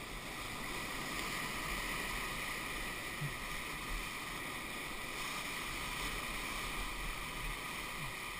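Whitewater rapid rushing around an inflatable raft, a steady hiss of churning river water that swells slightly about a second in.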